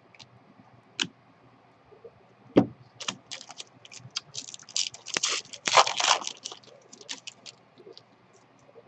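Trading card packs and cards being handled: a couple of sharp clicks, then about four seconds of crinkling and scraping as a foil pack wrapper is torn open and the cards are slid out.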